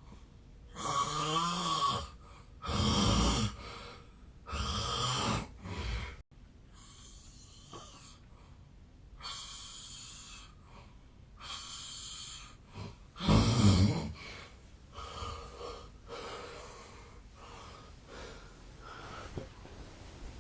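A man snoring heavily in his sleep: three loud snores about two seconds apart, a softer stretch, then more snores, the loudest about two-thirds of the way through, trailing off into softer uneven breathing sounds.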